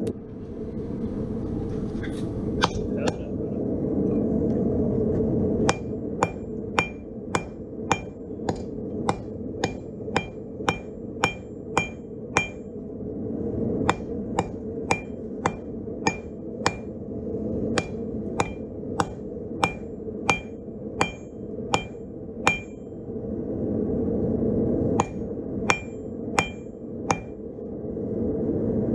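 Hand hammer striking steel on an anvil, blows coming about twice a second, each with a short bright ring from the anvil. There are three runs of blows separated by short pauses, over a steady low rushing noise.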